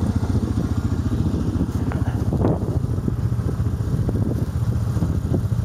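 Quad bike (ATV) engine idling steadily, with a few short knocks or scuffs about two seconds in.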